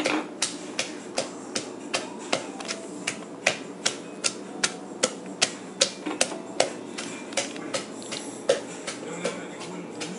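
Wooden pestle pounding in a clay mortar, steady knocks about two and a half a second, crushing chillies, garlic and seasonings for Lao papaya salad.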